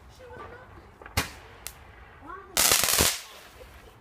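Fireworks going off: a single sharp bang about a second in, then a half-second burst of rapid crackling bangs near three seconds.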